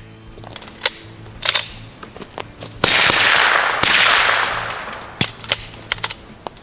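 Suppressed 9mm pistol, a Lone Wolf Glock-pattern build, firing two shots about a second apart, each followed by a long rushing echo that dies away. A few sharp lighter clicks come before and after the shots.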